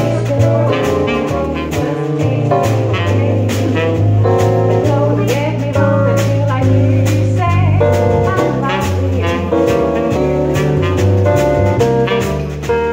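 Small jazz combo playing live: tenor saxophone over keyboard piano and bass, with guitar and a drum kit keeping a steady beat.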